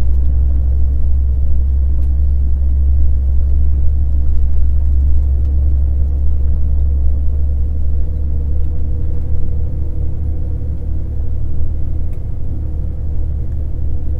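Car driving at steady speed: a continuous low rumble of engine and road noise, with a faint steady engine hum above it.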